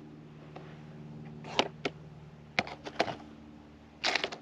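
Minelab SDC 2300 gold metal detector's faint low buzzing signal as the coil sweeps a faint target on bedrock, weakening in the middle and returning near the end. Several sharp clicks and knocks come through, about two to three seconds in and again near the end.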